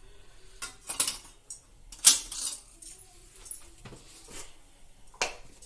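Small steel spoon clinking against stainless-steel spice tins and a steel mixing bowl while spices are measured out: a few sharp separate clinks, the loudest about two seconds in.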